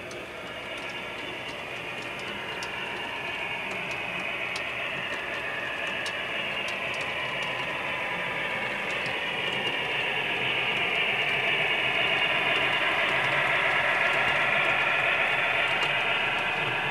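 HO-scale model freight train led by two ALCo RS27 diesels, running on the layout's track with its locomotives and cars rolling past. A steady, tinny running noise with faint clicks grows louder as the train nears and is loudest as it passes.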